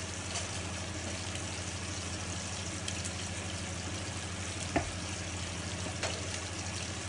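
Trout fillets frying in butter in a pan, a steady sizzle over a low hum, with one sharp knock of a utensil or pan about five seconds in.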